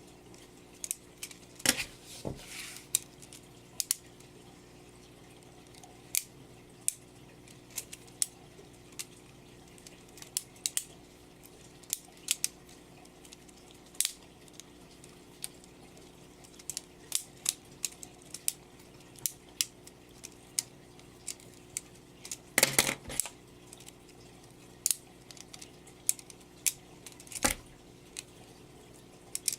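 LEGO butterfly knife being flipped: the plastic brick handles and blade clack in quick, irregular clicks. There are a few louder clatters, about 2 seconds in, around 23 seconds and near 27 seconds.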